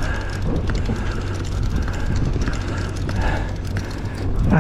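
Steady low drone of the fishing boat's engine, with wind and sea noise over it.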